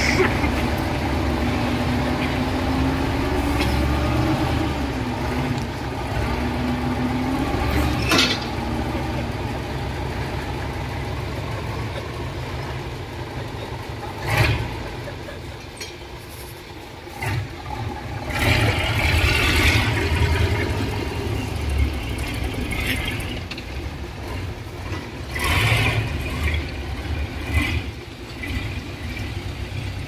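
Heavy diesel construction machinery running under changing load, the engine note rising and falling over the first several seconds. Two sharp knocks stand out, and there are hissing bursts later on.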